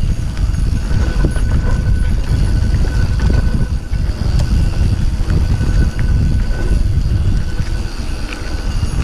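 Mountain bike riding fast down a dirt singletrack: heavy wind rumble on the microphone, with the rattle of the bike and its tyres over the dirt.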